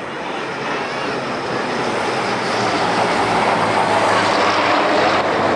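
Military aircraft flying over in a parade flypast, a heavy engine rush growing steadily louder as they approach.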